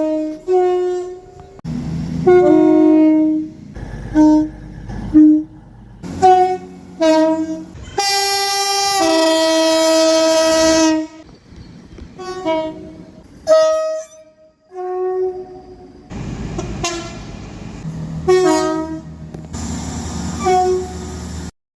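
Train horns sounding a string of short blasts, many as two-tone high-low pairs, with one long blast of about three seconds near the middle, partly over the rumble of moving trains. It cuts off abruptly near the end.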